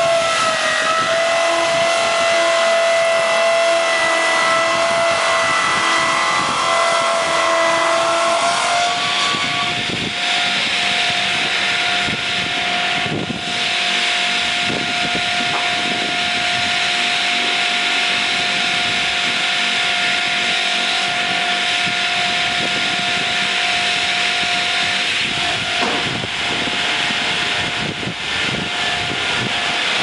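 Swing-blade sawmill's circular saw running with a steady high whine over a dense hiss as it cuts a pine log. The note is a little lower and unsteady for the first nine seconds, then holds slightly higher and steady.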